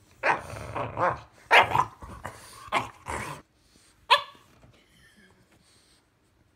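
A French bulldog and an English bulldog puppy bickering: a quick run of growling barks for about three seconds, then one sharp bark about four seconds in.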